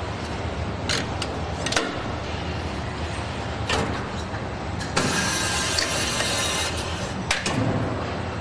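Factory machinery working a differential case: a steady hum with occasional sharp metallic clicks, and a loud hiss about five seconds in that lasts under two seconds.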